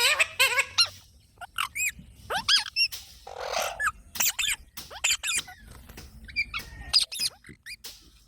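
Parrot calling: a string of short, shrill screeches and squawks in quick clusters with brief pauses, one harsher squawk about halfway through.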